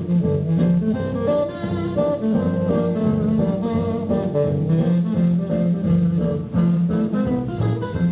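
Guitar-led music playing through a vintage Elektra stereo console's speakers.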